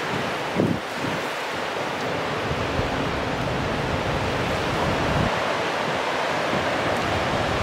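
Wind blowing on the microphone: a steady rush of noise with uneven low buffeting, a stronger gust about half a second in.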